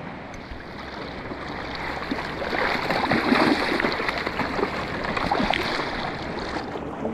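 River water rushing and splashing, swelling louder about two and a half seconds in and easing off near the end.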